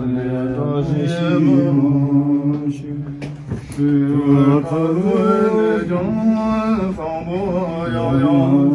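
Tibetan Buddhist ritual chanting by low male voices, long held notes sung in a steady drone-like line, with a brief break about three and a half seconds in.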